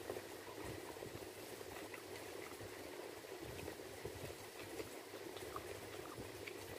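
A hand mixing and scooping rice and curry on a steel plate, faint small clicks and squishes, over a steady low background hum.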